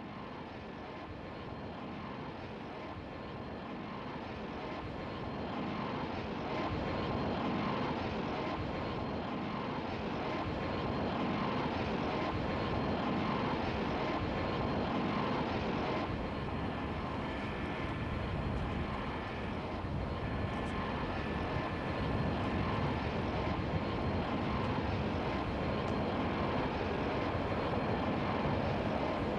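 Jet noise of an approaching twin-engine Airbus A220-300, its Pratt & Whitney PW1500G geared turbofans giving a steady rushing sound with a faint whine. It grows gradually louder as the aircraft nears.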